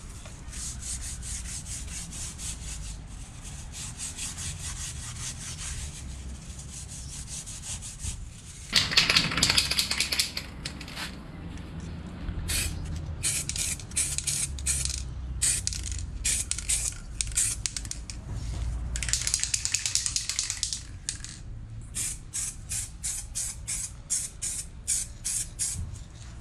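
A cloth rubbing over the metal of an outboard's lower unit, wiping it down with acetone. About nine seconds in, an aerosol can of paint starts spraying: one long hiss, then many short puffs of spray, two or three a second.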